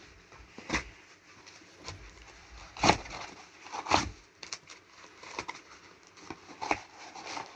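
A parcel being unpacked by hand: irregular knocks and crackles of packaging being handled and opened, the loudest about three and four seconds in.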